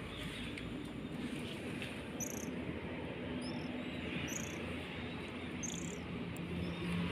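Faint outdoor evening ambience: short, high chirps every second or so over a low, steady background hum.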